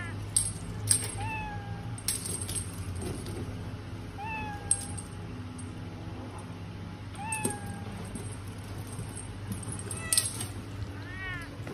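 Domestic cat meowing about four times, roughly every three seconds, each meow rising briefly and then falling. A few short sharp clicks land between the meows and are the loudest sounds.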